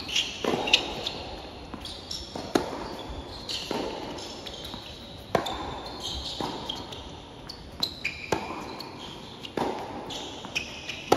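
Tennis rally on a hard court: sharp racket-on-ball hits about every two seconds, mixed with ball bounces, and sneakers squeaking on the court surface between the shots.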